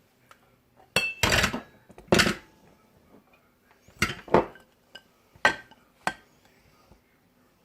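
Kitchenware clattering and clinking: about seven sharp knocks and clinks, several bunched together in the first couple of seconds and a few more spaced out later.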